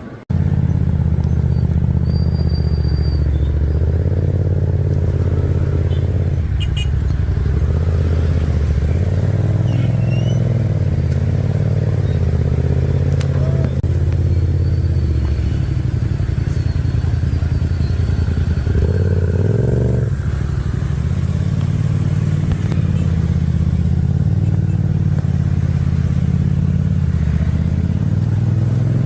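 Motorcycle engine running while riding, a loud steady drone that begins abruptly and shifts in pitch about twenty seconds in.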